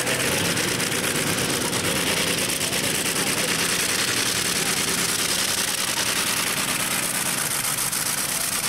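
Modified pulling tractor with several piston engines, about 55 litres in all, running at full throttle as it drags the weight sled: a loud, steady, rapid engine rattle.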